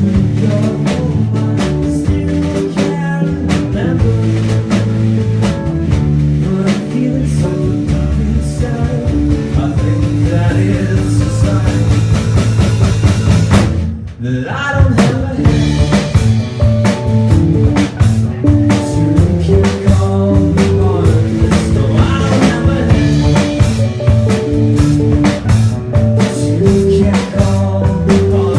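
Live rock band playing, with drum kit, guitar and bass; about halfway through the band cuts out for a moment on a short break, then comes straight back in.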